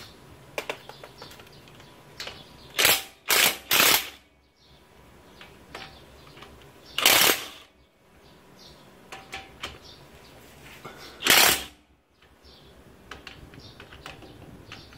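DeWalt impact wrench hammering in five short bursts, breaking loose the differential bearing cap bolts on a Dana 44 M210 front axle. Three bursts come in quick succession about three seconds in, then one around seven seconds and one around eleven, with light clicks of socket and bolts between.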